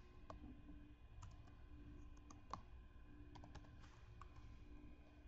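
Faint, irregular clicks of a computer keyboard and mouse as symbols are entered into a formula, about a dozen in all, the strongest about halfway through, over a faint steady hum.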